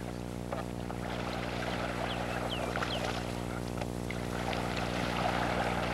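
Faint water sounds of a canoe paddle working the water, under a steady electrical hum on the soundtrack. A few short bird chirps come about halfway through.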